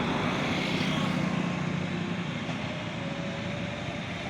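Diesel engine of a JCB 3DX backhoe loader running steadily as it works, slightly louder in the first second or so.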